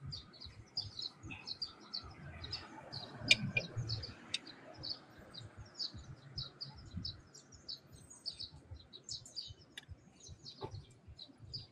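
Small birds chirping constantly in short, quick notes, with a few sharp metallic clicks of steel tyre levers against the moped's spoked wheel rim, the loudest about three seconds in.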